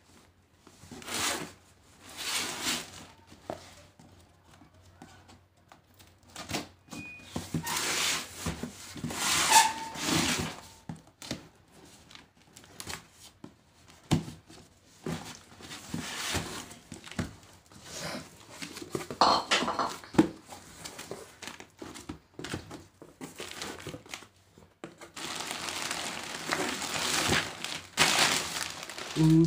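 A taped cardboard courier box being opened by hand: a blade slitting the packing tape, tape tearing, cardboard flaps and a plastic bag inside crinkling, in irregular bursts with a few dull thunks.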